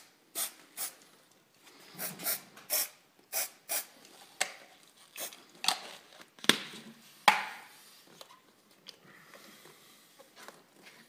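A series of sharp clicks and knocks from hardware being handled, with two louder knocks a little under a second apart past the middle, then fewer, quieter ticks.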